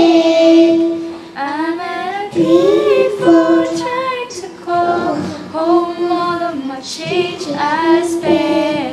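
A solo voice singing long held notes and wavering runs with few clear words, closing out a pop ballad.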